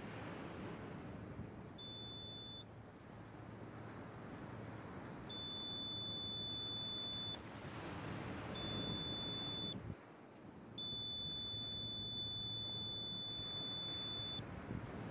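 Metal detector's high steady beep, sounding four times with gaps, the last one the longest, signalling a metal target in the sand. Low wash of surf underneath.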